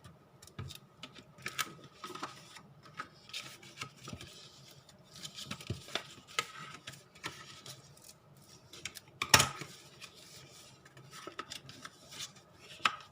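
Printed paper being folded and creased along fold lines by hand, with irregular rubbing and rustling and small clicks of paper, and one sharp tap on the work surface about two-thirds of the way through.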